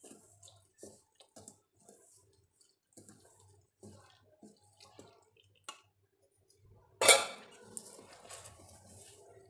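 Steel spoon scraping and clinking against a steel mixing bowl while stirring jaggery syrup into rice flour. About seven seconds in there is one loud clank that rings briefly, the loudest sound, and then the scraping goes on.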